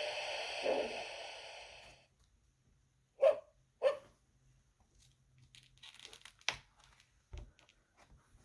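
An electronic sound-book chip playing a steam train chuffing, a hissy puff about once a second, fading out about two seconds in. Then two short, sharp, loud sounds about half a second apart, followed by faint rustling and light clicks and knocks as of the book being handled.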